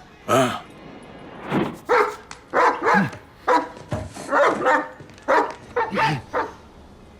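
A man barking like a dog: a string of about a dozen short, sharp barks in quick succession.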